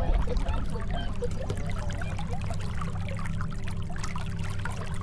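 Water trickling and lapping around a boat, many small quick gurgles, over a steady low rumble and a faint steady hum.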